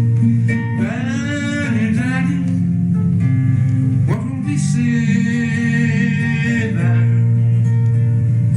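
A hymn sung by a single voice to acoustic guitar accompaniment, with held sung notes over strummed chords.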